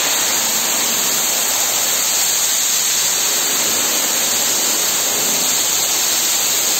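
Loud, steady rush of spa water, an even hiss loud enough to drown out a voice.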